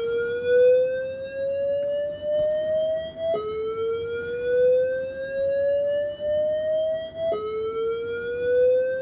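Alert tone of a voice evacuation fire alarm system: one pitched tone that rises slowly in pitch over about four seconds, then drops back and sweeps up again, restarting twice.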